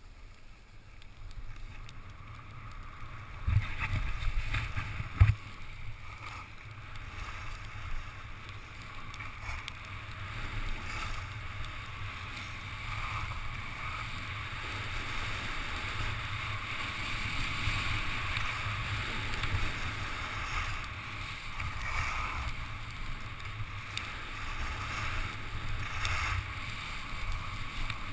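Skis scraping and hissing over packed snow, with wind buffeting the microphone as a low rumble; the hiss slowly grows louder as speed builds. Two sharp knocks come about three and a half and five seconds in.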